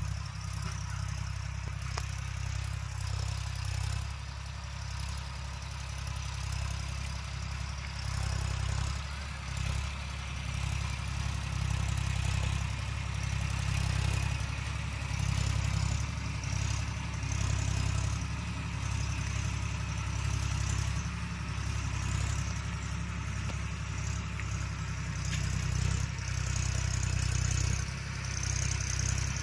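Massey Ferguson tractor's diesel engine running steadily, its low drone rising and falling slightly in loudness.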